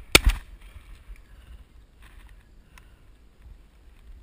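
Handling noise and wind rumble on a camera carried by a walking person: two loud knocks just after the start, then a low steady rumble with a few faint scuffs.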